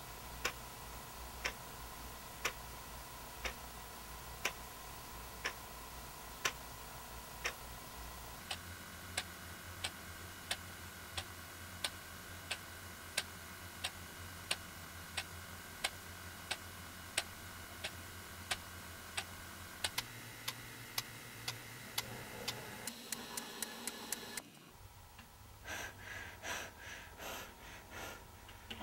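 Clock ticking about once a second over a low droning hum that shifts in pitch twice; the ticks then speed up into a rapid run. The hum cuts off suddenly near the end, and an alarm clock starts beeping in quick, even pulses.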